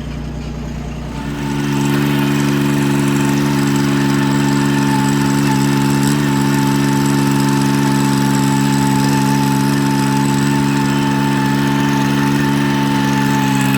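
An engine idling that revs up about a second and a half in, then runs steadily at the higher speed, with a thin steady whine above the engine note.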